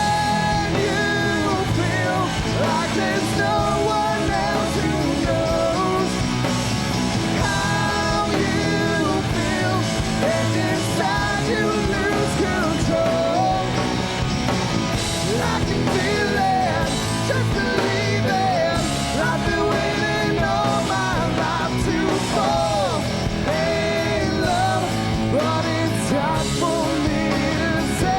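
Rock band playing a song: electric guitars, bass and drums, with a melodic lead line.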